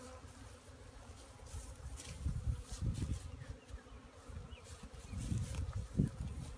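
Package honey bees buzzing in the air around an open top bar hive, with a few low rumbles on the microphone about two and five seconds in.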